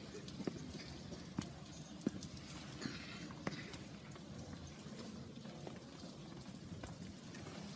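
Footsteps going down concrete stairs: faint, irregular taps and scuffs over a steady low hiss.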